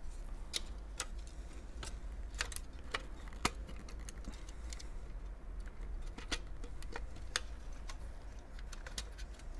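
Irregular light clicks and taps of hard plastic and metal as a modem's circuit boards, plastic frame and metal heatsink enclosure are handled and worked apart, over a low steady hum.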